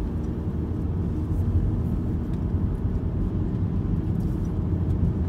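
Wind buffeting the microphone of a bike-mounted camera on a fast road-bike descent, a steady low rumble.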